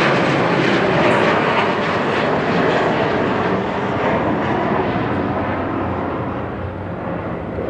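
An aeroplane flying overhead, loud at first and slowly fading as it passes.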